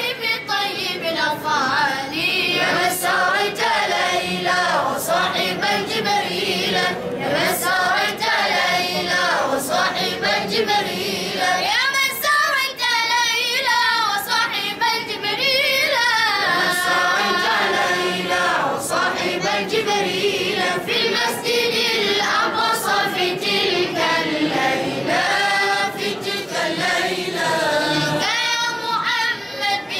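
Boys' voices singing an Arabic qaseedah, a devotional song, in a continuous melodic line with long, ornamented, wavering notes.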